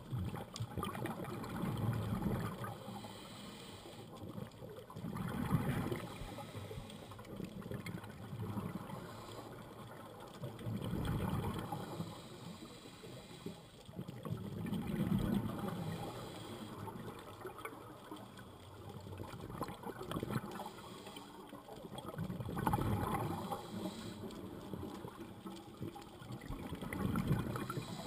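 A scuba diver breathing through a regulator underwater, heard through the camera's housing: a bubbling rumble of exhaled air comes about every three to five seconds over a faint steady hiss.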